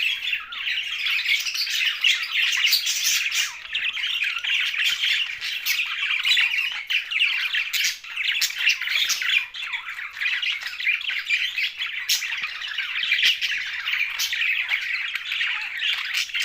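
A flock of budgerigars chattering and squawking together in a continuous, busy warble of short chirps and clicks.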